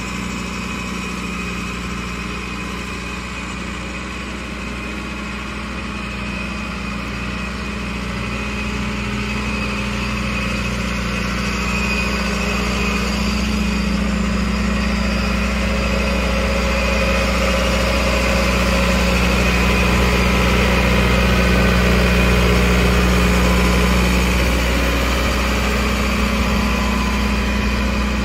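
Case IH JX95 tractor's four-cylinder diesel engine running steadily as the tractor drives, growing louder over the first twenty seconds as it approaches and passes close, then easing off slightly near the end.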